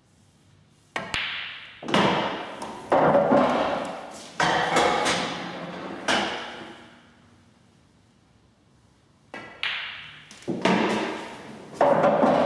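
Two pool shots: the cue tip strikes the cue ball about a second in and again near the ten-second mark. Each is followed by a run of ball knocks with long fading rolls, as a red is potted and rolls away inside the table.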